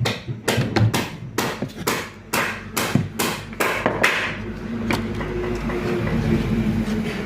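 A quick run of sharp knocks, about four a second, stopping about four seconds in, followed by a steady low hum.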